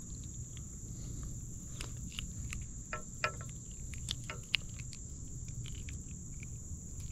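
Insects trilling as a steady, high-pitched drone. In the middle come a scatter of short clicks and taps from handling a bluegill while it is unhooked by hand.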